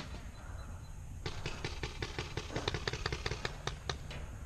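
Paintball markers firing in a rapid, uneven string of sharp pops, starting about a second in and stopping near the end.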